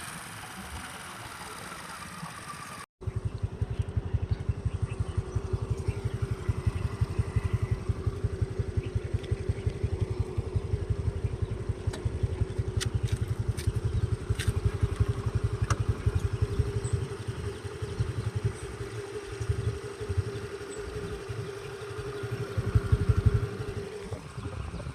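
An engine running steadily, with a rapid low throb and a steady drone, starting after a brief cut about three seconds in.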